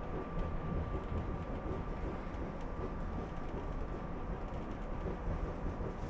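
Steady rumble of a SEPTA Regional Rail electric commuter train running along the track, heard from inside the passenger car. A faint steady whine fades out about two-thirds of the way through.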